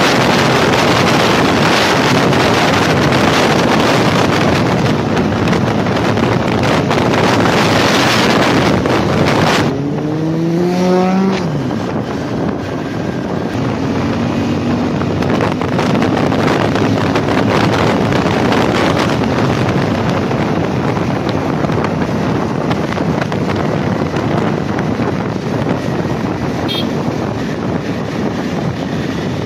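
Wind rushing over the microphone of a Honda CBR250R at road speed. About ten seconds in, the bike's single-cylinder engine is heard revving up briefly with a rising pitch, then running on steadily under wind and road noise.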